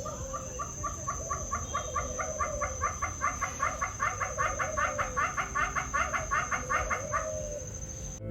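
A bird calling in a long, fast, even series of clucking notes, about four or five a second, that stops about a second before the end. A steady high-pitched insect drone runs beneath.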